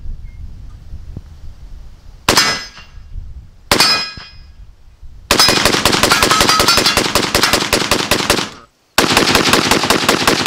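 Romanian RPK-pattern rifle in 7.62×39 firing from its bipod. There are two single shots about a second and a half apart, each with a short metallic ring of a struck steel target. Then comes a rapid string of shots lasting about three seconds, a sudden break, and another rapid string.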